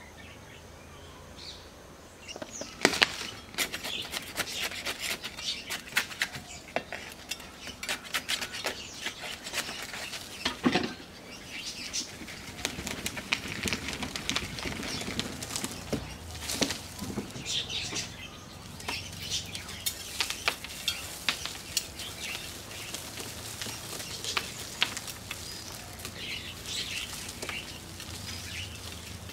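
Rustling and crackling of hands working a bonsai tree loose and lifting its root ball out of a plastic pot: leaves brushing, roots and soil crumbling, with many sharp clicks and small knocks. It starts about two seconds in.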